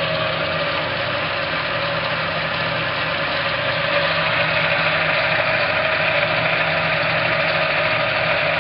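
Hardinge HLVH toolroom lathe running under power: a steady mechanical whir of motor and gearing with a constant whine, the sound of a machine in nice running condition.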